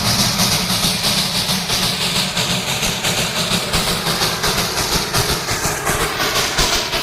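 Darjeeling Himalayan Railway narrow-gauge toy train running, a steady clatter of wheels over the rails with a quick, even rhythm.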